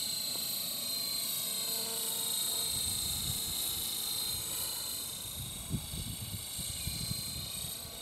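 Radio-controlled model helicopter with a four-blade main rotor in flight, its rotor and drive giving a steady high-pitched whine. A low, gusting rumble joins in about three seconds in.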